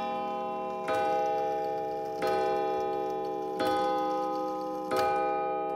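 Antique Sessions mantel clock striking the hour: four evenly spaced strikes about a second and a third apart, each ringing on and slowly fading, the last about five seconds in. The ticking of the movement shows through as the last strike dies away.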